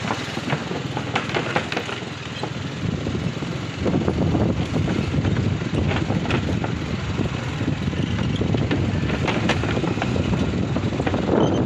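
Motorcycle engine running at low speed as the bike rolls over the wooden plank deck of a suspension bridge, with scattered knocks and clatter from the boards. It gets louder about four seconds in.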